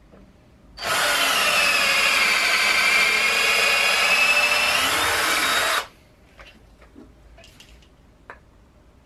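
Hitachi cordless drill with a 7 mm bit drilling into an aluminium extrusion profile, running steadily for about five seconds. Its whine sags a little in pitch as the bit cuts, rises again, then stops abruptly, followed by a few faint handling clicks.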